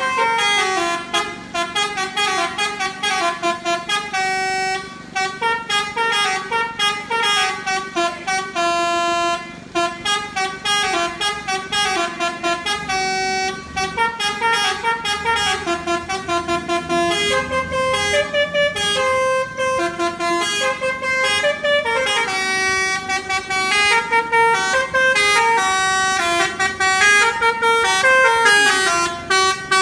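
Telolet basuri horn on a tour bus playing a fast melody of short, stepping notes without a break, starting abruptly.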